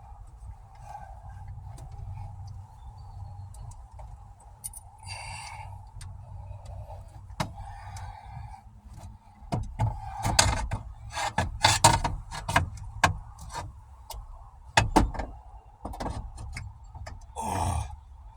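Sharp knocks and clatters of hands and tools working on a car's dashboard, growing busier and louder past the middle, over a faint steady hum. A short falling groan near the end.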